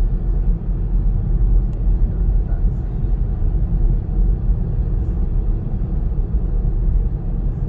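Steady low rumble of road and engine noise inside a moving car's cabin at expressway speed.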